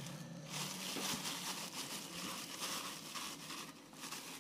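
Light crinkling of a plastic sheet and a metal spoon scraping through cassava dough as it is scooped and shaped into balls, heard as a faint steady crackle.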